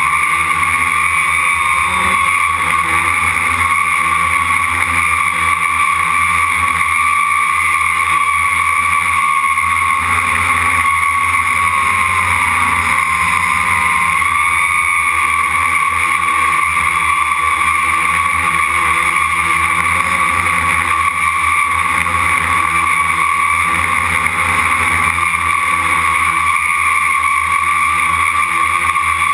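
Quadcopter's electric motors and propellers running with a steady high whine, heard close up from a camera mounted on the frame. The pitch dips and wavers slightly about halfway through.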